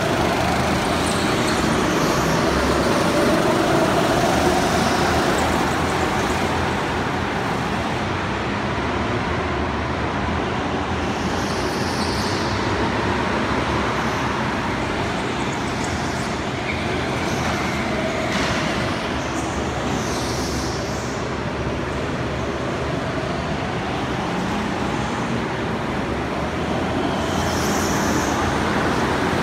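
Several go-karts running laps on a track: a steady drone of kart motors, with faint whines rising and falling as karts pass.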